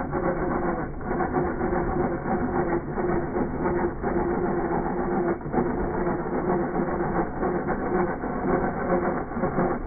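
Small motor of a homemade model tractor running with a steady, constant hum.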